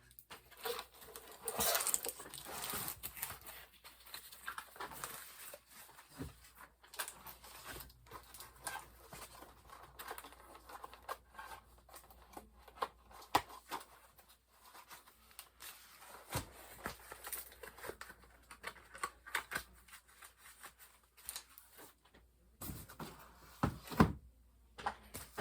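Ceiling fan blades and their packaging being handled: irregular rustling and crinkling of paper or plastic wrap, with scattered light knocks and taps as the blades are moved and set down.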